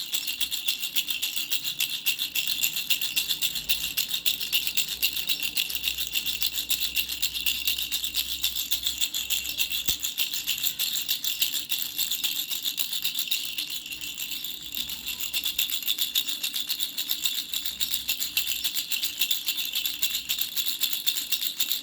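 Baby rattle shaken fast and continuously, a dense, bright rattling of many tiny strokes, easing off briefly about two-thirds through before picking up again.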